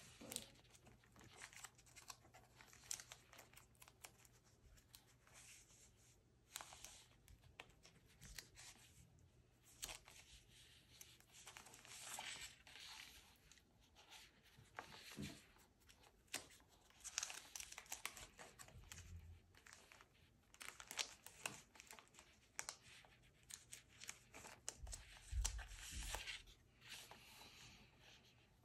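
Faint, close sounds of paper shape stickers being peeled off their backing sheet one after another and pressed and smoothed onto a diary page, with the plastic-sleeved sticker sheet rustling between peels.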